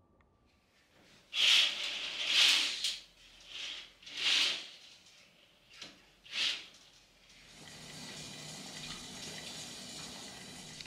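Curtains swished open along their rail in several quick sweeps, then the steady hiss of a lit gas stove burner.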